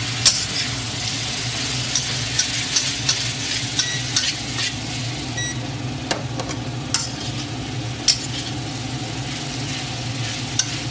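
Chicken and broccoli stir-fry sizzling in a wok, with a metal spatula scraping and knocking against the pan at irregular moments as the food is tossed. A steady low hum runs underneath.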